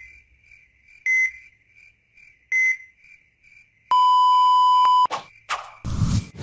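Heart-monitor sound effect: two short high beeps about a second and a half apart, then a steady flatline tone held for about a second, signalling cardiac arrest. Whooshing transition effects and a heavy low thump follow near the end.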